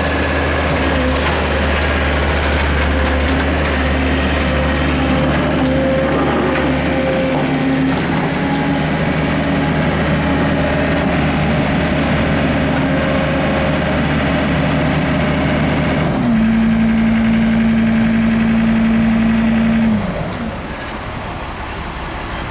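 John Deere 332 skid steer's diesel engine running steadily under throttle. About 16 seconds in it changes to a louder, steady higher tone, then drops back to a quieter, lower idle about 20 seconds in.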